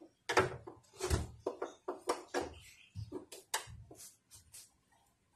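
Irregular handling knocks and taps of hands working at the underside of a homemade plywood table saw and its mounted circular saw, louder in the first half and fainter after about three seconds.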